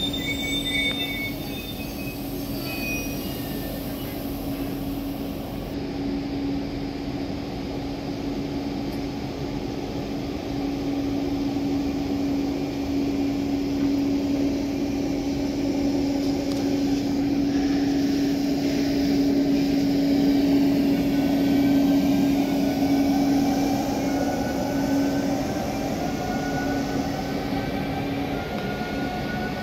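Trenitalia double-deck electric regional train running past along the platform: a steady low hum with wheel-on-rail noise, growing louder through the middle and easing off near the end. A faint rising whine comes in during the second half.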